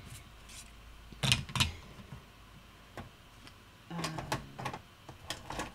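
Small laser-cut wooden tools clacking on a work table as they are picked up and set down: two sharp clacks a little over a second in and a faint tap around three seconds.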